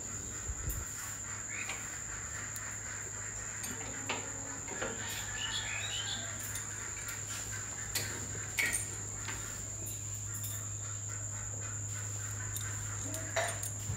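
Outdoor ambience: a steady high-pitched insect drone over a low steady hum, with a few bird chirps about five seconds in and scattered sharp clicks.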